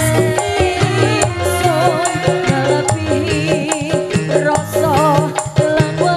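Live dangdut band playing: a steady drum beat with shaker-like percussion, keyboard and guitar, and a wavering melody line on top.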